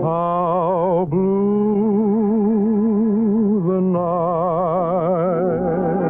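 Introduction of a 1940s film-soundtrack song recording, before the vocal: long held notes with a wide, even vibrato, moving to a new note about a second in and again near four seconds.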